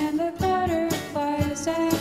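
Outro theme song: a voice singing a melody over a steady beat.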